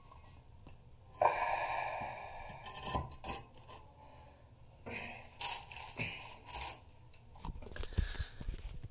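Rustling, scraping and knocking noise from a camera being handled and moved around. The loudest part is a sudden scraping rush a little over a second in that fades over about two seconds, followed later by scattered clicks and short scrapes.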